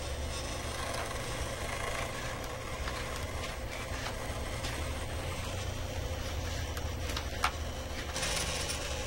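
Steady low motor hum with a faint higher whine from the wheeled robot's drive motors and head servos as it moves. There is a single sharp click about seven and a half seconds in and a brief hiss a little after.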